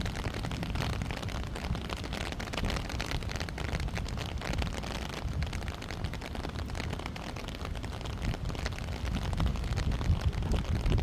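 Wind buffeting the microphone: a continuous low rumbling roar with irregular gusts, growing stronger near the end.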